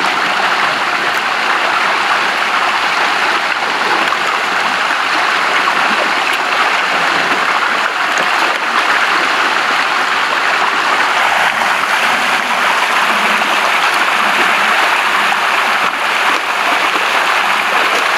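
Steady, loud rush of churning water, with netted milkfish thrashing and splashing in the shallow pond water.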